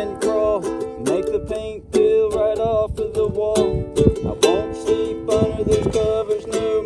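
Ukulele strummed in a steady rhythm, with a voice singing along.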